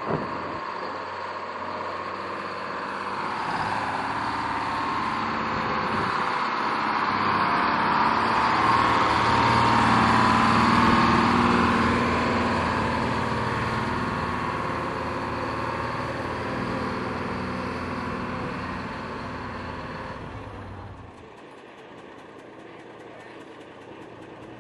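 Diesel truck engine running as big rigs move about, with a low engine hum under a broad rush of noise that swells to its loudest about midway. The sound drops away suddenly near the end.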